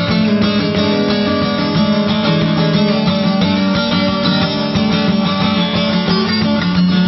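Background music: guitar-driven instrumental with plucked and strummed guitar.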